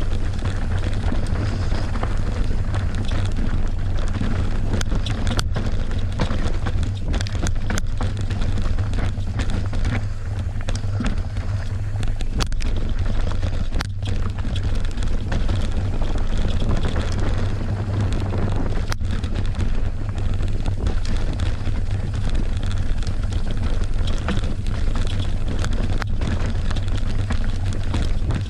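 Heavy wind buffeting on the microphone over steady noise from a mountain bike running fast down a rough trail, with a few sharp knocks scattered through.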